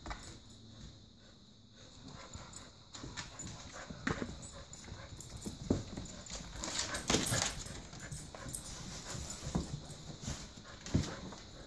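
A Golden Retriever and an Australian Shepherd playing tug-of-war with a rope toy: scattered knocks and a clatter of claws and paws scrabbling on a hardwood floor, mixed with dog play noises. The busiest, loudest stretch comes a little past the middle.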